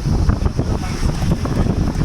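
A moving vehicle's road and wind noise: a steady low rumble with many small knocks and rattles, and wind rushing across the microphone.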